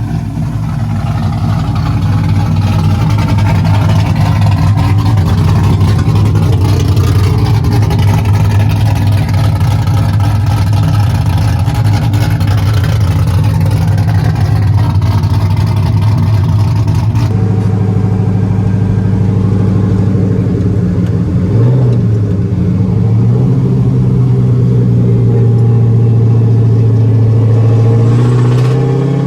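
LS1 V8 in a 240SX S14 running steadily under way, with road noise. The sound changes abruptly about 17 seconds in. A short rev follows a few seconds later, and the engine pitch rises near the end as the car accelerates.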